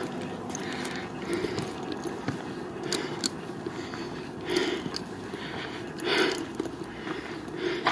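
Footsteps crunching on dry dirt and gravel, about one every second or so, over a steady outdoor background noise.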